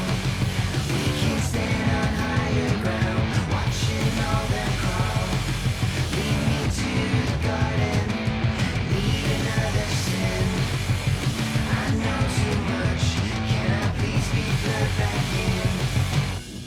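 Rock music with electric guitar and singing, laid over the video.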